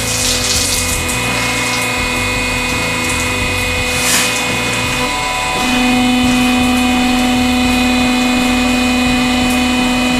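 Hydraulic pump of a 100-ton press running with a steady hum, which turns louder and slightly higher about halfway through. Short hissing bursts come near the start and again about four seconds in.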